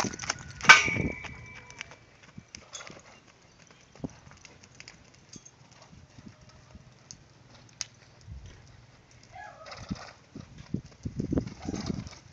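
A horse's hooves beating on the dirt of a round pen as it is ridden, louder near the end as it comes closer. About a second in there is a sharp clang that rings on briefly.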